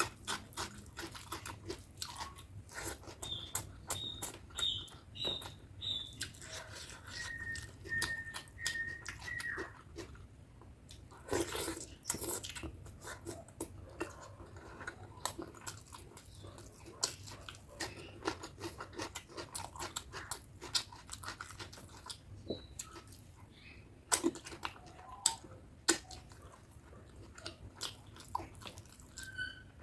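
Close-miked chewing and wet mouth sounds from eating spicy chicken curry with basmati rice, with irregular smacks and clicks throughout. A few brief high squeaks come in the first ten seconds.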